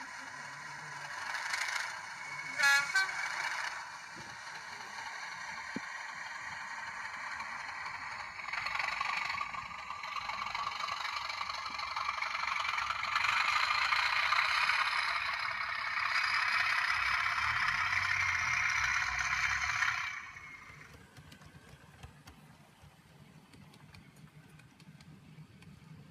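Model Class 37 diesel locomotive running along the layout track: a steady whirring hiss that grows louder from about 8 seconds in and stops suddenly about 20 seconds in. A short, higher tone sounds briefly near the 3-second mark.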